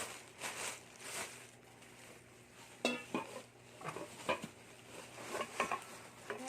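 A rustle of packaging, then metal cookware, pots and lids, clinking and knocking together several times as it is unpacked, some knocks leaving a short metallic ring.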